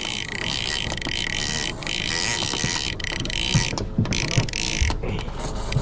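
Penn International 50VISW lever-drag trolling reel giving out line, its drag and clicker running as a steady high-pitched mechanical whine with a few sharp clicks: a fish is on and pulling line off the reel.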